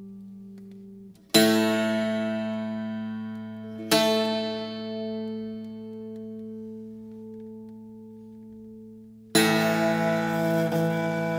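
Background folk music: a steady low drone under strummed plucked-string chords, struck about a second in, again at about four seconds, and near the end, each left to ring out.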